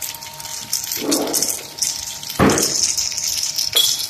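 Corn-snack extruder running, a steady high hiss with a faint even tone underneath. Two louder swells of noise come about one and two and a half seconds in, and there is a sharp click near the end.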